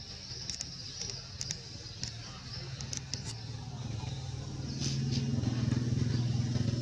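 A low engine hum that grows louder about five seconds in, with a few faint clicks.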